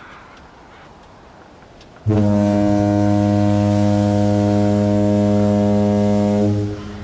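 A ship's deep horn sounds one long, steady blast of about four and a half seconds, starting about two seconds in, over a steady outdoor hiss.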